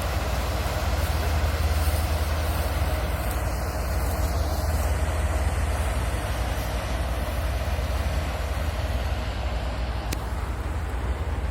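Self-propelled combine harvester running steadily, its diesel engine droning with a deep, even hum under a constant mechanical rush.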